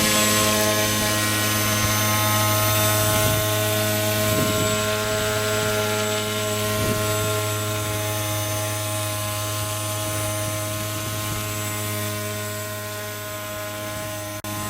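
Electric motor and propeller of a large RC paper airplane running steadily in flight, a steady buzzing hum that eases off slightly toward the end.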